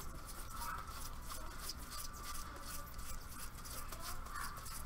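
Stack of baseball trading cards being flipped and slid through a person's hands: a fast, light, irregular rustle of card edges and faces ticking against each other.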